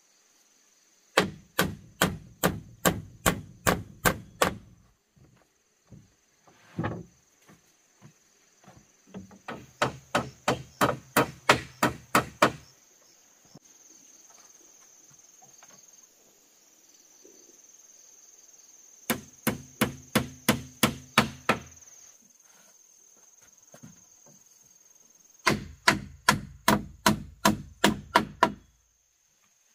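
Hammer blows on wood, in four quick runs of about three strikes a second, each run lasting around three seconds with short pauses between.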